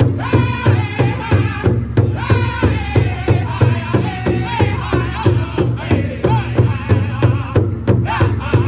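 Pow wow drum group: several men striking one large powwow drum together with drumsticks in a steady, even beat while singing as a group over it.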